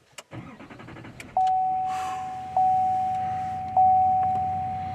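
A few clicks, then a vehicle's warning chime starting about a second and a half in: a single-pitched ding repeating about every 1.2 seconds, each one fading before the next.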